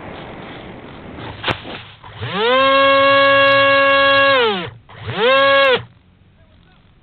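RC plane coming down in grass: a sharp impact, then its motor spins up to a steady pitch for about two seconds, winds down, and is run up once more briefly before stopping.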